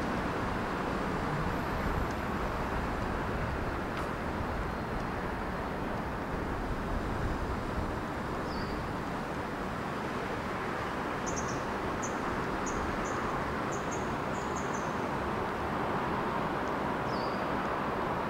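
Steady hum of city traffic from the surrounding roads, with short high bird chirps about halfway through, a quick run of them a little later, and one more near the end.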